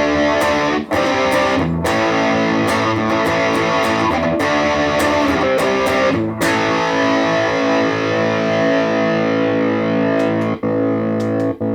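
Vintage VS6 electric guitar played through a Positive Grid Reactor 50 combo amp on its crunch channel: distorted bar chords strummed in a quick rhythm for about six seconds, then chords held and left to ring.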